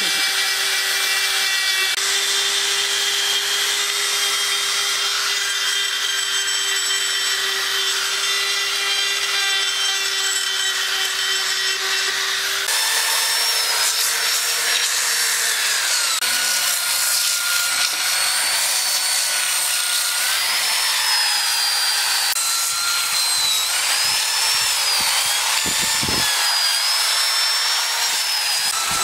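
Small high-speed rotary tool with a sanding disc grinding on wood: a steady motor whine over the hiss of abrasive rubbing the wood. About 13 seconds in the sound changes suddenly, and from then on the whine's pitch wavers up and down.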